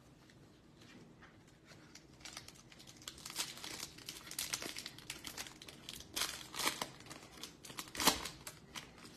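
Plastic wrapper of a Topps baseball card pack crinkling as it is handled and torn open. It starts about two seconds in and ends with the loudest sharp tear near the end.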